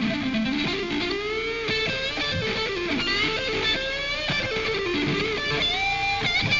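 Stratocaster-style electric guitar played lead, with notes that bend and slide up and down in pitch and a high note held near the end.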